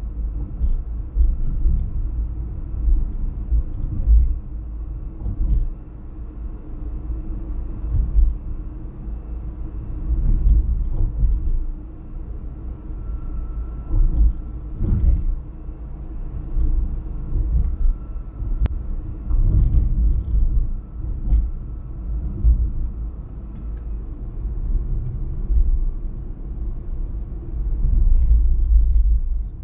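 Car driving on a road: a low, steady rumble of engine and tyre noise that swells and eases, with a few brief knocks.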